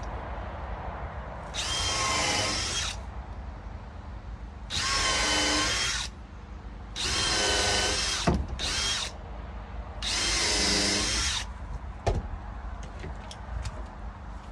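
Power drill pre-drilling screw holes in 2x6 deck boards: five runs of the motor whine, each about a second long, with a couple of sharp knocks in between.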